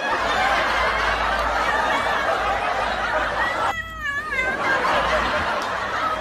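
Snickering laughter, with a short, wavering, high-pitched cry about four seconds in.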